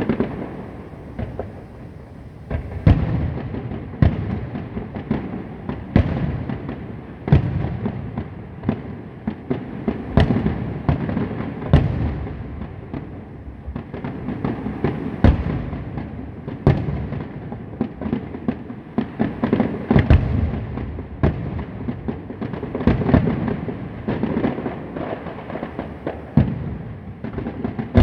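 Fireworks going off: a steady run of sharp bangs and booms, one or more every second, over a continuous rumble of distant explosions.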